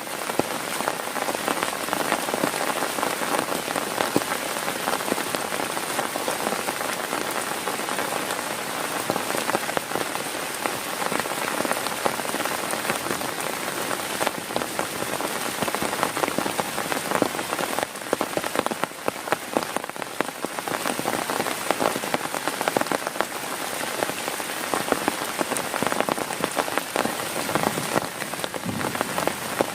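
Heavy rain hitting a tent, a steady dense patter of countless drops.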